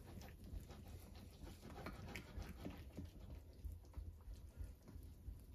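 Spatula stirring thick corn pudding batter in a glass casserole dish: faint, irregular scraping and clicking strokes over a steady low hum.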